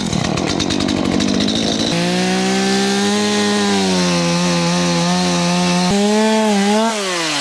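Gas chainsaw running hard: rough and uneven for the first couple of seconds, then held at a steady high-revving whine. Near the end the throttle is released and the engine note falls away.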